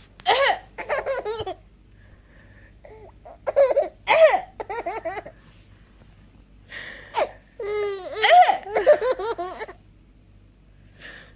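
A baby laughing hard in three bouts of giggles and belly laughs, with short pauses between them, set off by someone's coughing.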